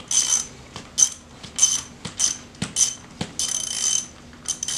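Socket ratchet wrench clicking in repeated short strokes as it turns the forcing screw of a pulley puller, pressing the press-fit pulley off a Ford 7.3 Power Stroke vacuum pump shaft.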